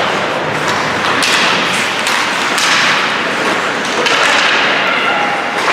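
Ice hockey game play: repeated knocks and thuds from sticks, puck and boards over a steady scraping haze, with sharp scraping bursts about a second in, near the middle and about four seconds in.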